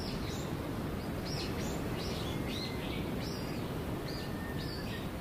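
Small birds chirping: about a dozen short, high calls scattered irregularly over a steady background hiss.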